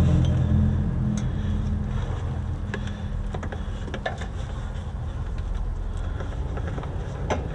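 A steady low engine-like hum, loudest at the start and dying down over the first couple of seconds, then holding at a lower level, with scattered light clicks and knocks.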